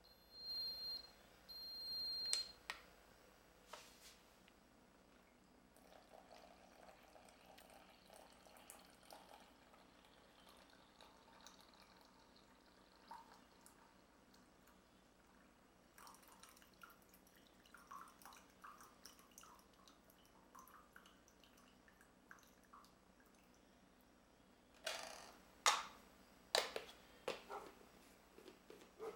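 Béaba Bib'expresso baby-formula machine giving two short high beeps, then faintly trickling and dripping as it dispenses into a baby bottle. Several sharp clicks and knocks come near the end.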